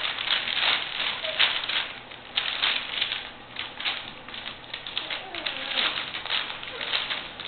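Newspaper crinkling and rustling in quick, irregular bursts as a litter of mastiff puppies step on it, chew it and tug at it.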